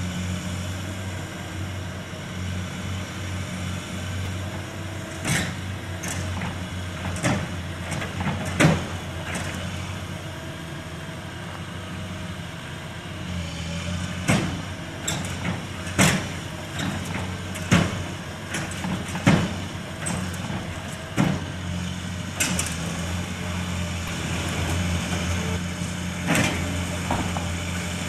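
Heavy demolition machinery with its diesel engine running steadily, and repeated sharp clanks and cracks, a dozen or so at irregular intervals, of concrete and debris being broken and dropped.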